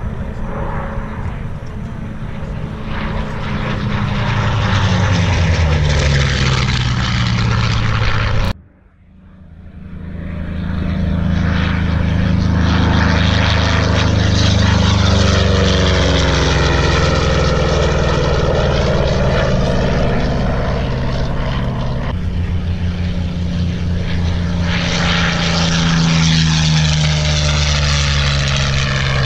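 Propeller-driven warbird flying low passes, its engine drone sliding down in pitch as it goes by. The sound breaks off abruptly about a third of the way in and fades back up, then changes sharply again about three-quarters of the way through.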